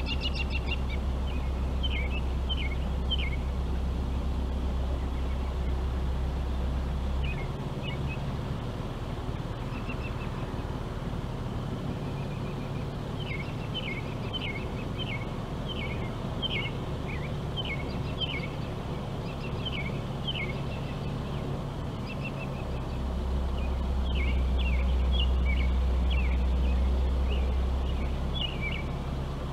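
Wild songbirds singing in runs of short, quick, high chirped notes. Under them runs a steady low rumble that is loudest for the first several seconds and again near the end.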